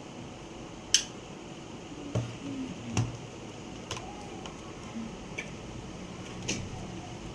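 A few separate sharp clicks and light knocks from objects being handled, the loudest about a second in, with a low room background.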